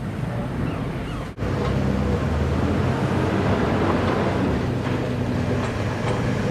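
Heavy log truck's diesel engine running steadily, with some wind noise, briefly cutting out about a second and a half in.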